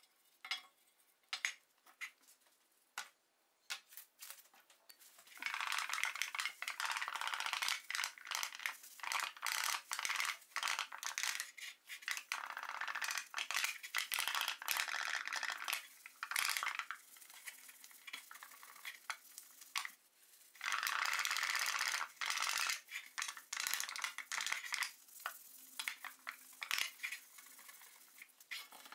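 Cloth rubbing and polishing a round metal kitchen-scale pan, in long stretches of steady scrubbing broken by short pauses, with a few light knocks and clinks of the pan being handled at first.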